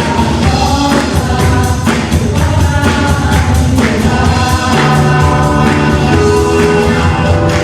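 Christian worship song: a group of voices singing together over a band with a steady beat.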